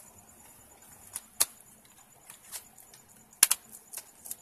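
Hands pressing on a Dell Inspiron N4050 laptop keyboard: several sharp, irregular clicks, the loudest pair close together about three and a half seconds in.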